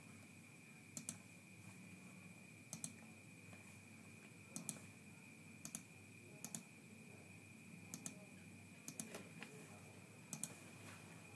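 Computer mouse clicking about eight times at irregular intervals, each click a quick double tick of press and release, over a faint steady high-pitched whine.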